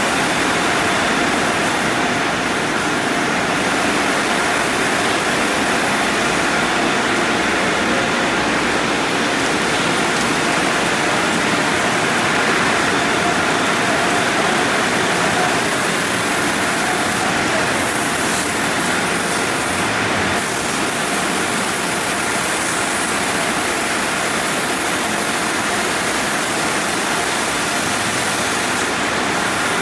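Conveyor car wash tunnel running: water spraying and cascading onto a car while the rotating wash brushes turn against it, a loud, steady rush of water noise with a faint machine hum under it.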